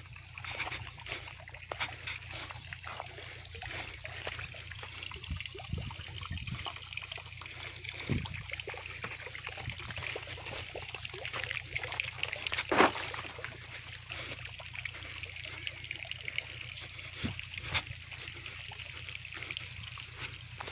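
Water trickling along an earthen field irrigation channel, with scattered clicks and rustles and a low steady hum underneath; one sharper click about two-thirds of the way through.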